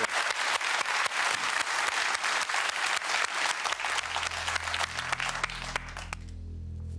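Studio audience applause, dense clapping that fades out over the last couple of seconds. A low, sustained music bed comes in about four seconds in.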